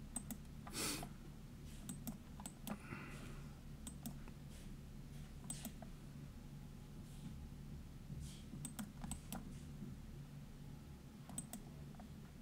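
Faint scattered clicks and taps of a computer mouse and keyboard in use, over a low steady hum.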